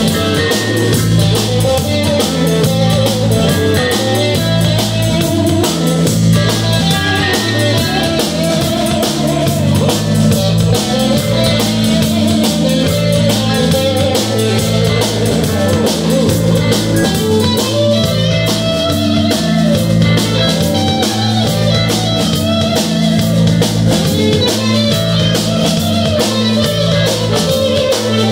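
Live instrumental funk jam by a four-piece band: Stratocaster-style electric guitar, electric bass, drum kit and a Nord Electro 2 keyboard playing together at a steady loud level. A repeating bass line runs underneath busy cymbal and drum playing.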